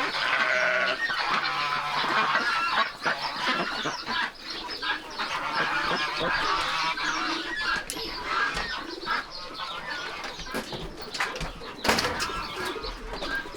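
Barnyard poultry calling over one another, a dense chorus of honks and clucks, with a few sharp knocks, the loudest near the end.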